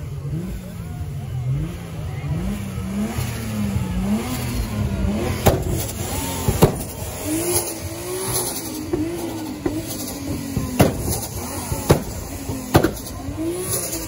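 Nissan 300ZX twin-turbo V6 being revved over and over, its pitch rising and falling every second or so, with turbo flutter as the throttle is let off. Several sharp bangs ring out in the second half.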